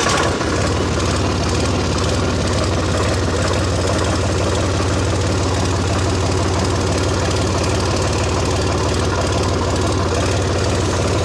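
Farm tractor's diesel engine running steadily as the tractor drives, heard loud and close from the driver's seat.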